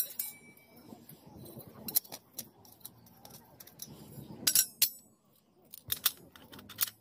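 Stainless steel parts of a portable wood-burning camp stove clinking and scraping as they are fitted together by hand: irregular sharp metal clinks. The loudest is a ringing clatter about four and a half seconds in.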